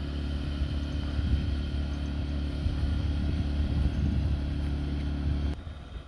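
Steady low hum of an idling motor, which drops away suddenly about five and a half seconds in.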